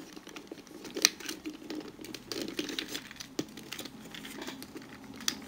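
Small plastic clicks and rustles from a Transformers Combiner Wars Rook figure as its arms and backpack are folded by hand. Sharper clicks come about a second in, past the middle, and near the end.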